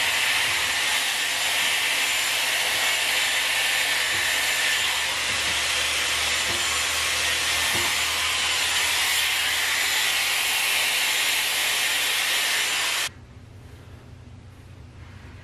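Hot-air brush hair styler running steadily, a loud rushing hiss of blown air over a low motor hum, cutting off suddenly near the end.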